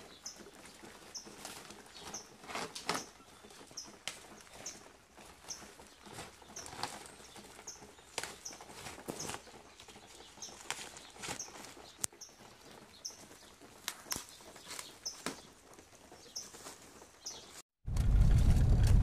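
Crackling and rustling of lump charcoal and sacks as charcoal is packed into bags, with a short high chirp repeating about every two-thirds of a second. Near the end it switches abruptly to the much louder low rumble of a car driving.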